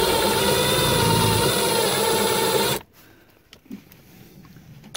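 Cordless drill running steadily, its bit boring out a wooden bung in the trim, then stopping a little past halfway. A few faint clicks follow.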